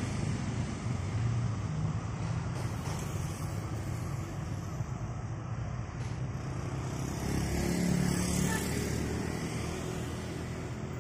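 Steady low outdoor rumble with no distinct events, swelling a little about eight seconds in.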